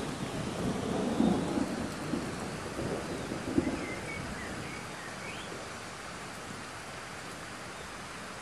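Steady rain falling on a pond's surface, the drops pattering on the water. Thunder rumbles low under it for the first few seconds, peaking about a second in and again near three and a half seconds, then dies away, leaving only the rain.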